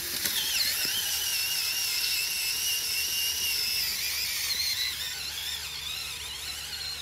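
Cordless drill whining steadily as it turns a blacksmithed driver tool, screwing a red auger-type earth anchor into the ground. From about four seconds in, the whine wavers and dips slightly in pitch as the anchor takes the load.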